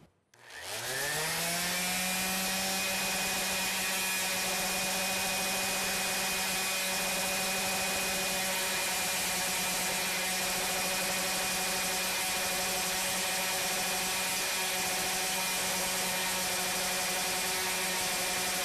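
Electric random orbit sander switched on, its motor whining up to speed in about a second and a half, then running steadily while its pad sands a 45-degree bevel into the edge of a wooden piece.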